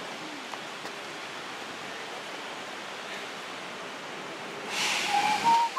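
Steady outdoor city ambience, an even hiss with no distinct sources. About five seconds in comes a louder rush of hiss lasting about a second, and near the end a person starts whistling a steady note.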